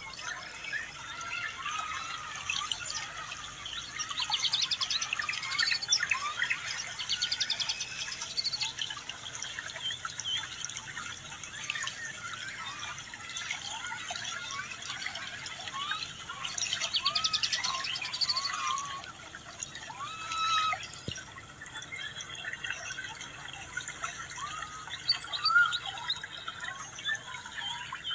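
Many birds chirping and calling at once in a dawn-chorus-like tangle of short rising and falling notes. Bursts of fast trilling come and go several times.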